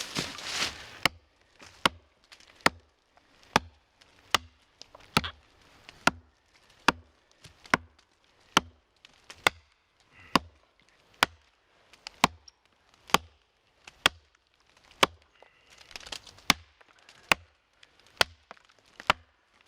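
An axe chopping into a log in steady, evenly paced strokes, about one a second, twenty or so sharp strikes in all. It is taking wood off the back of a split-log bench to stop it wobbling.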